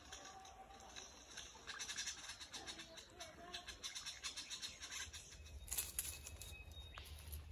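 Superb lyrebird scratching through dry leaf litter and twigs while foraging: a fast run of faint scratchy rustles, with a few soft short bird notes. Near the end a louder low rumbling rustle takes over.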